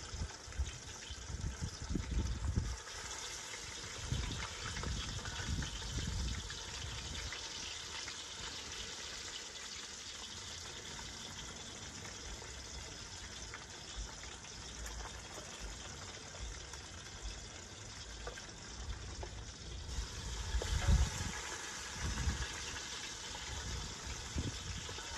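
Fish deep-frying in hot oil in an outdoor propane fryer pot: a steady sizzle, with low rumbles near the start and again about twenty seconds in.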